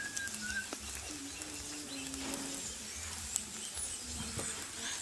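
Rice frying in oil in a pot, a soft steady sizzle with scattered light ticks.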